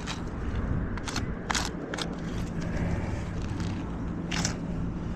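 Chalk scraping across asphalt roof shingles in a series of short strokes, over a steady low rumble.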